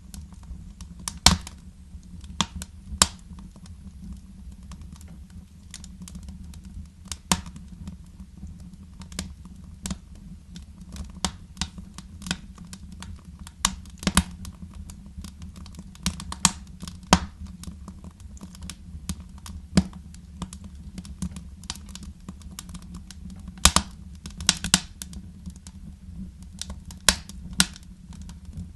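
Fire crackling in a fireplace: irregular sharp pops, a few much louder than the rest, over a steady low rumble.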